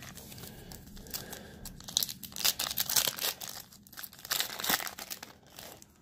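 A Panini Threads basketball card pack being torn open by hand, its wrapper crinkling and tearing in a run of crackles that fades out near the end.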